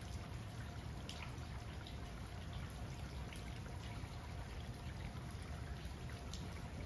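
Rain falling, with scattered drips ticking close by over a low, steady rumble.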